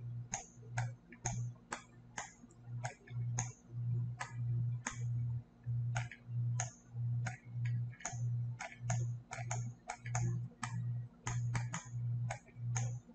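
Computer mouse clicking repeatedly, about two sharp clicks a second at uneven intervals, each with a short low hum.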